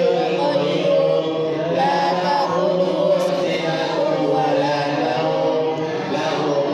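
A congregation of men and boys chanting Qur'anic recitation together in unison, a continuous group chant without pauses.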